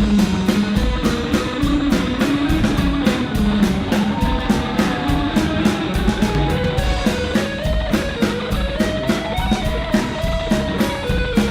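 Live rock band playing an instrumental break: a guitar carries a gliding melodic lead over drums keeping a steady beat of about four strokes a second.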